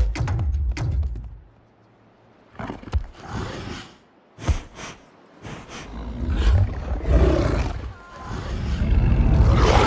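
Film sound design of a giant wolf's deep growls and roars, loud at the start and swelling again near the end. A couple of sharp thuds fall in a quieter stretch around the middle.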